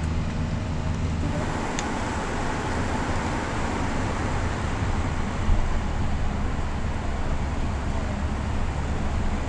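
Steady rushing noise with a low rumble. A low droning hum underneath stops about a second in, where the sound changes.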